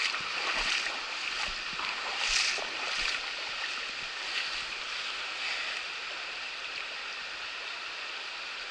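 Shallow river running over a rocky riffle: a steady rush of flowing water, with a few brief louder sounds in the first three seconds.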